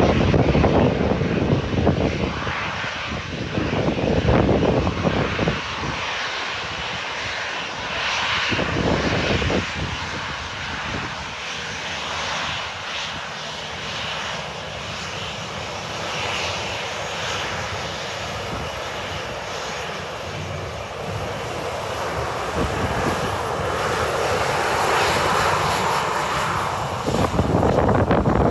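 A Boeing 737-800's twin CFM56-7B turbofan engines running at low taxi power as the jet rolls past: a steady jet whine and rush, growing louder near the end.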